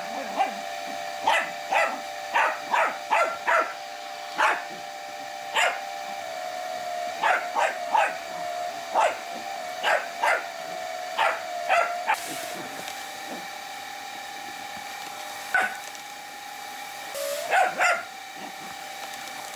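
A Jack Russell terrier puppy barking at a running vacuum cleaner. The barks are short and sharp and come in quick runs, with a pause of a few seconds past the middle. Under them the vacuum motor whines steadily, its pitch shifting a few times as it works.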